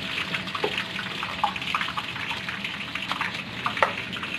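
Stinky tofu deep-frying in a wok of hot oil: a steady sizzling crackle with a few sharper pops, over a low steady hum.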